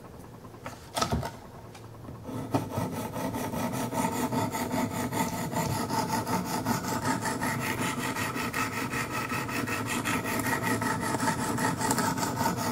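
200-grit sharpening stone on a Wicked Edge guided sharpener scraping in rapid repeated strokes along a Kershaw Skyline's 14C28N steel blade edge, after a brief knock about a second in. The scraping is rough and gritty because the grit has just been switched and the stone is still wearing down the peaks and valleys left by the 100 grit.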